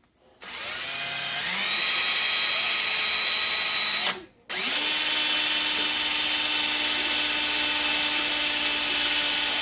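Power drill boring a hole into a billiard ball (the 8-ball). The motor whines up to speed about half a second in and runs steadily. It stops briefly just after four seconds, then starts again at a higher pitch and runs on.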